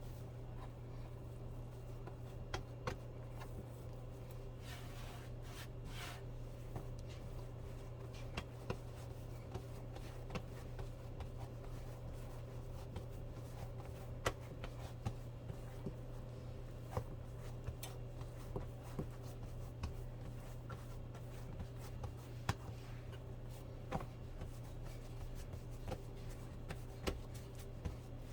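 Scattered light taps and soft rubbing of hands working biscuit dough and utensils on a kitchen counter, over a steady low hum.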